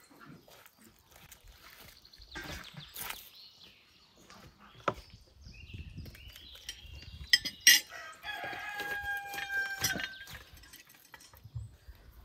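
A rooster crows once, a single held call of about two seconds, a little after a few sharp clinks of a knife striking the wooden carving board.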